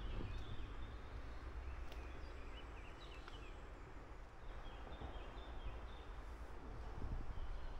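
Birds chirping in short, high calls, in scattered bouts, over a steady low rumble of outdoor ambience.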